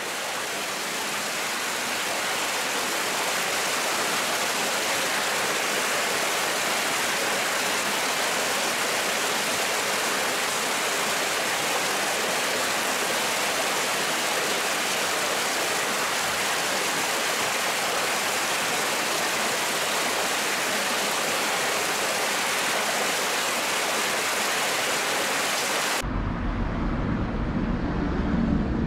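Steady rushing, splashing water in a tank crowded with live eels, the water foamy with bubbles. Near the end it gives way abruptly to a low rumble.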